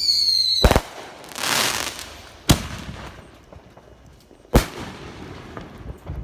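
Fireworks going off: a whistling firework whose whistle falls in pitch and ends in a loud bang under a second in, a brief crackle, then two more single bangs about two seconds apart and a few small pops near the end.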